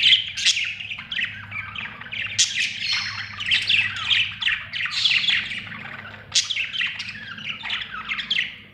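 Budgerigars chirping and chattering in a rapid, continuous stream of short chirps and squawks.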